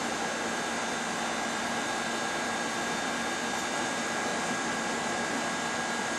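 Steady background hiss and hum with a faint constant high whine, unchanging throughout.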